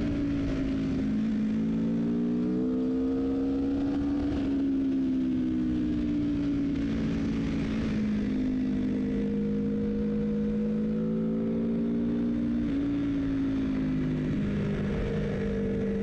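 Hyper-naked sport motorcycle engine running at road speed, heard from on board, its pitch rising and easing gently with the throttle over a steady rush of wind and road noise.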